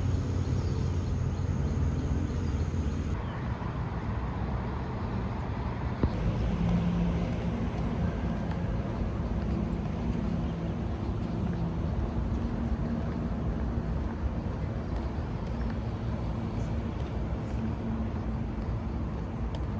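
Steady low rumble of distant motor traffic, with a faint thin high tone for a few seconds past the middle.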